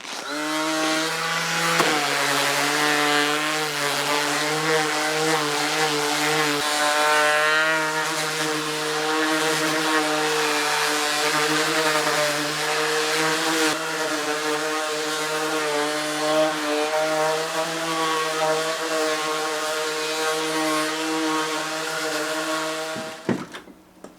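Electric sander running steadily while smoothing rough-sawn boards fresh off the sawmill, with a steady motor whine. Its pitch dips slightly about two seconds in, and it cuts off shortly before the end.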